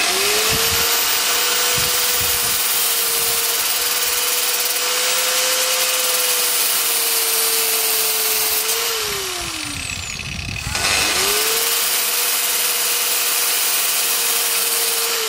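Angle grinder running while a short Allen bolt, spun in a cordless drill, is ground against its disc to cut it shorter, with a steady motor whine over a bright grinding hiss. The grinder winds down about nine seconds in, starts up again about two seconds later, and winds down again at the end.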